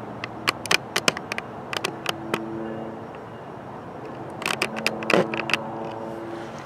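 Camera handling noise: two bursts of sharp clicks and scrapes as the camera is moved, one early and one about two-thirds through. Under them runs a steady hiss with a faint low hum.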